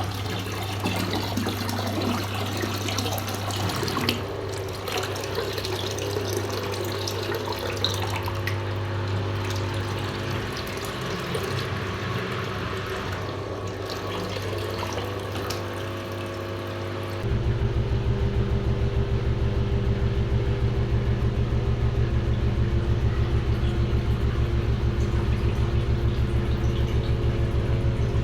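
9 kg TCL front-load washing machine running: water sloshing in the drum over a steady motor hum. About two-thirds of the way through it grows louder, with a fast, even pulse as the drum speeds up.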